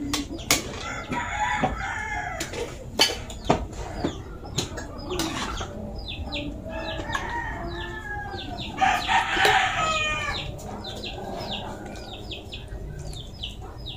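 Chickens clucking, with a rooster crowing once about nine seconds in. A metal ladle clinks against an aluminium pot a few times in the first few seconds.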